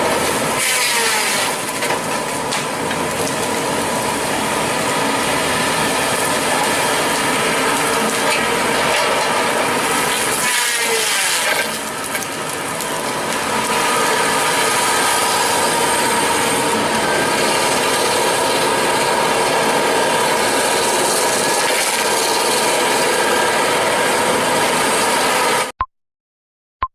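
Tree-cutting excavator machine working, its machinery running steadily with a constant whine. The sound cuts off suddenly near the end.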